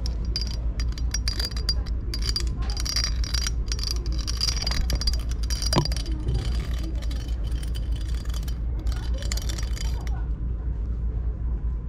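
Cat teaser toy rattling and clicking in quick, irregular strokes, which stop abruptly about ten seconds in, over a steady low rumble.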